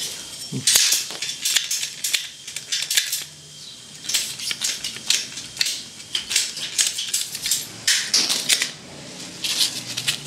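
Hand-squeezed ratchet pipe cutter clicking in repeated runs of sharp ticks as it closes through a plastic water pipe, with a couple of short pauses between squeezes.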